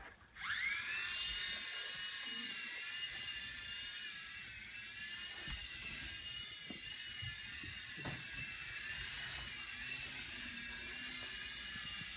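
Blade mCX coaxial micro RC helicopter's electric motors and rotors spinning up with a quick rising whine about half a second in, then holding a steady high-pitched whine that rises and falls slightly as it flies.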